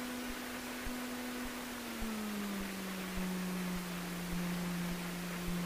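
Cessna 150's engine and propeller at taxi power, heard as a steady hum over a hiss. About two seconds in, its pitch slides down and settles lower as the engine slows.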